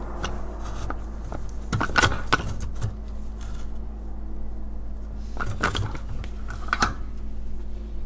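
Dishwasher top rack being slid onto its metal rails: clicks and rattles of the plastic rack adjusters and wire rack against the slide rails, in a cluster about two seconds in and again around five to seven seconds in, over a steady low hum.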